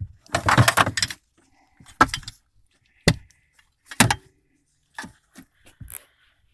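Metal seatbelt hardware rattling and clicking in about six short bursts, roughly one a second, as the belt is worked through a hole in the trim.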